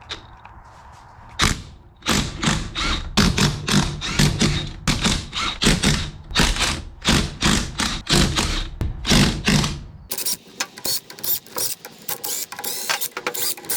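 Metal ratcheting clicks in short repeated strokes, about two or three a second, turning to faster, lighter clicking for the last few seconds, from a mechanism being worked by hand.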